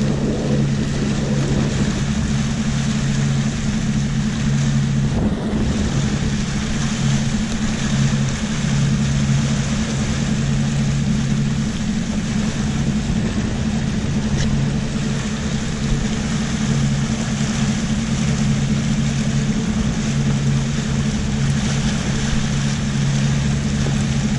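Suzuki 250 four-stroke V6 outboard motor running at steady cruising speed, a low drone that wavers slightly about once a second, over the steady rush of water and wind as the boat runs.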